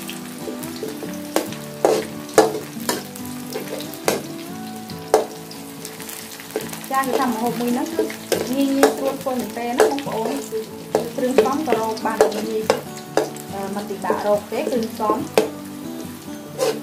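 Minced garlic sizzling in hot oil in an aluminium wok, stirred with a metal ladle that clinks and scrapes against the pan many times.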